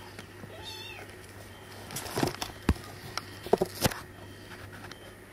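A Burmese kitten gives one short, high mew about a second in. Then come a handful of sharp knocks and scrapes between two and four seconds in, louder than the mew.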